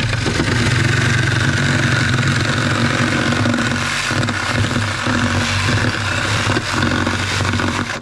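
Reciprocating saw cutting through a trapezoidal metal roofing sheet, running steadily; it cuts off at the very end.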